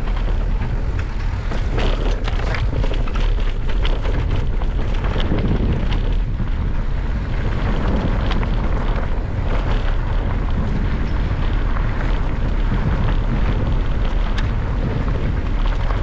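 Steady wind rumble on the microphone of an electric mountain bike riding a trail, with frequent small clicks and knocks of the bike rattling over rough ground.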